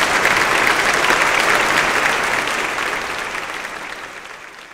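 Audience applauding at the end of a choral performance, the clapping fading out over the last couple of seconds.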